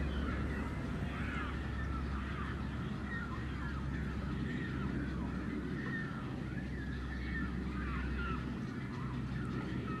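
Many short, overlapping calls from birds in a brown pelican nesting colony, each sliding up or down in pitch, over a low steady rumble.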